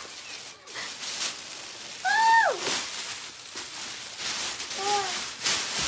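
Clear plastic bag rustling and crinkling as it is handled and pulled out of a cardboard box. A child's short exclamation with a falling pitch about two seconds in, and a fainter one near the end.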